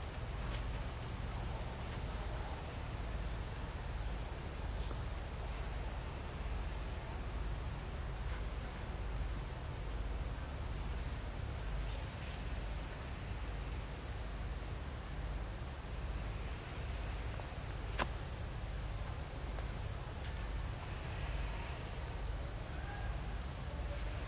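Steady high-pitched chorus of insects, with several shrill layers and one pulsing about once a second, over a constant low rumble.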